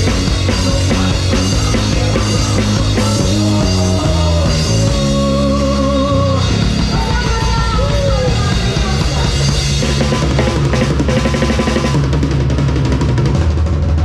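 Drum kit played live in a rock band's song, with kick, snare and cymbals over a steady bass line and a melody line that wavers above.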